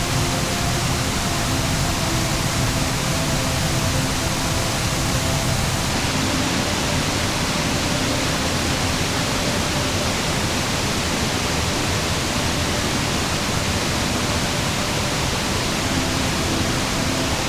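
Rushing water of a mountain gorge stream, a steady dense roar of flowing current over rocks. Faint sustained tones sit under it in the first few seconds and again near the end.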